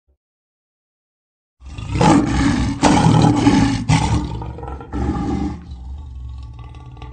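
Lion roaring: after a moment of silence, a run of loud, rough roars about one and a half seconds in, trailing off into quieter sounds over the last second or two.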